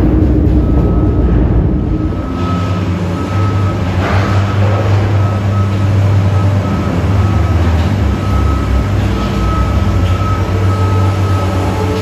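New York City subway train running through the station, with a loud steady low rumble, a thin high tone that comes and goes over it, and a short rush of noise about four seconds in.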